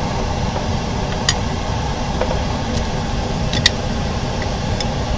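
Steady low background hum with four light, sharp clicks spread through it.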